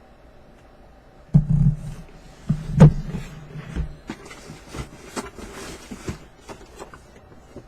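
Collectibles boxes and packaging being handled: a heavy thump about a second and a half in, a louder one about three seconds in, then scattered clicks and rustling.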